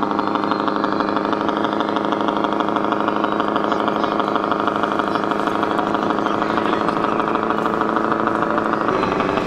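Electronic engine sound module of an RC scale Freightliner Cascadia truck playing a diesel engine sound through its speaker, running steadily at a low, even engine speed as the model drives slowly.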